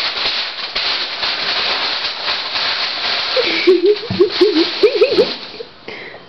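A Shih Tzu puppy pushing its head into a padded chair cushion after a tennis ball, making a steady rustling, snuffling noise that stops shortly before the end. Partway through, a quick run of five or six short sliding vocal sounds rises and falls.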